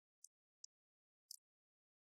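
Near silence, broken by three faint short clicks from a plastic brick-built toy submarine being handled.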